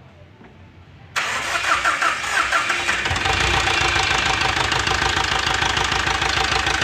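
Mahindra Scorpio's four-cylinder mHawk diesel engine being started about a second in: it cranks briefly, catches, and from about three seconds in settles into a steady idle. It is running with a misfire, which the mechanic puts down to the injectors disturbed during the timing job.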